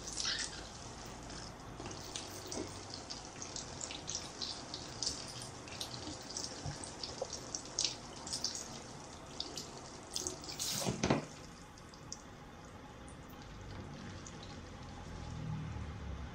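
Water spraying from a handheld shower head onto hair over a salon shampoo basin, a steady hiss with splashing and dripping. There is one louder sudden noise about eleven seconds in, and the spray is quieter after it.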